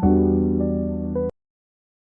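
Soft background music with sustained piano or electric-piano chords and a few higher notes; it cuts off abruptly about a second in.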